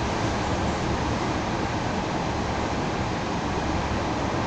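Steady running noise of a moving suburban electric train heard from inside the carriage: wheels on rails and the car body, even and unbroken.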